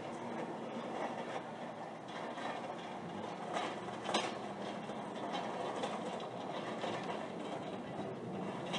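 Steady, continuous mechanical noise, a dense rushing hum, with a few sharp clicks or clatters, the loudest about four seconds in.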